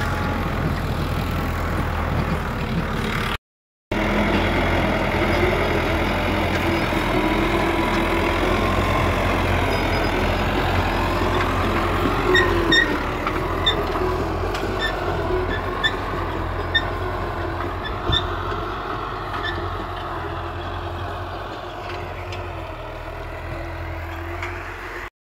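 An engine running steadily with a low, even hum, its pitch wavering a little. Short high chirps repeat for a few seconds in the middle.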